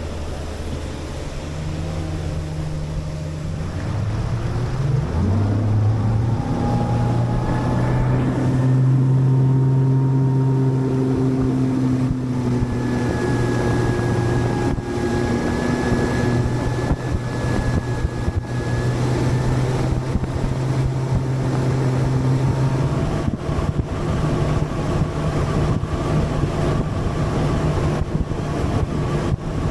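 A bass boat's four-stroke outboard motor running under way, its pitch climbing as the revs come up about five seconds in and then holding steady. Wind buffets the microphone throughout.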